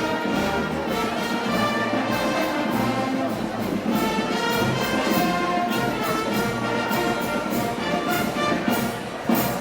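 Brass band playing Moros y Cristianos festival music: trumpets and trombones carrying the melody over percussion strokes that keep a steady beat.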